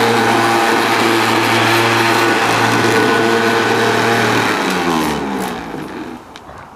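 Qualcast electric hover mower's motor running steadily, then switched off about four and a half seconds in, its whine falling in pitch as the motor and blade spin down.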